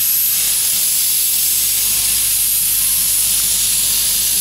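Steam locomotive no. 850 hissing loudly and steadily as steam escapes around its cylinders.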